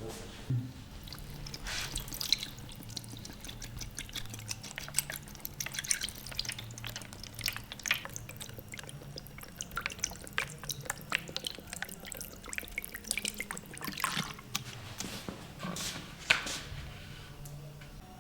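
Irregular light clicks and taps with dripping liquid, over a faint steady low hum.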